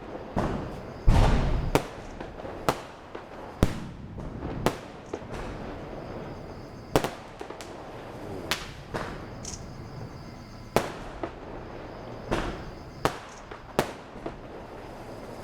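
Diwali firecrackers and fireworks going off one after another in irregular sharp bangs, the loudest a deep boom about a second in.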